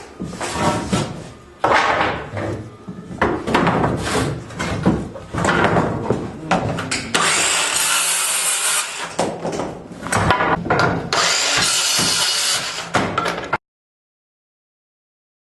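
Demolition work on a wooden structure: power tools and wood being cut and worked in a dense run of noisy bursts. The sound cuts off abruptly to dead silence shortly before the end.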